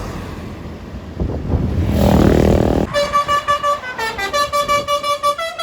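A bus passes close by with a rising rush of engine and road noise. About three seconds in, a multi-tone 'telolet' bus horn plays a quick melody of short notes stepping between pitches, several a second.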